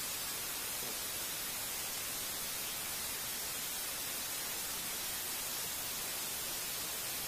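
Steady, even hiss of static from a video-call recording's audio, with no other sound on top.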